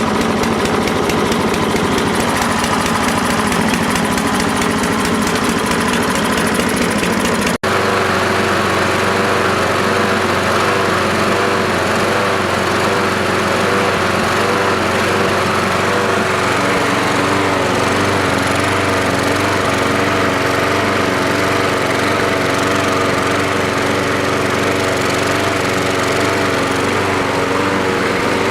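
Troy-Bilt walk-behind lawn mower's small engine running steadily, its carburetor freshly cleaned. The sound breaks off for an instant about a quarter of the way in, then carries on.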